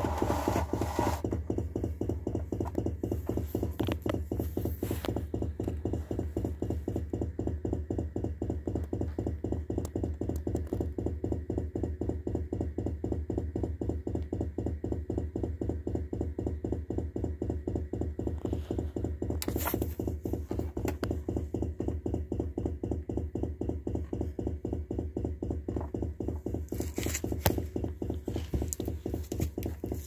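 Refrigerator making a fast, even, low-pitched pulsing noise that keeps going without stopping, which the owner takes for a sign that the fridge is about to die.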